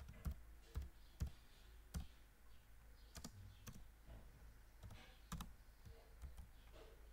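Computer keyboard keys being typed, a dozen or so faint, separate keystrokes at an unhurried, uneven pace.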